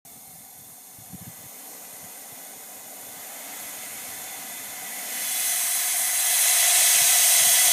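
Well pressure hissing out through an oil-well wellhead's gate valve as its handwheel is turned open before swabbing. The hiss grows steadily louder and sharper, rising sharply about five seconds in. There are a couple of light knocks about a second in.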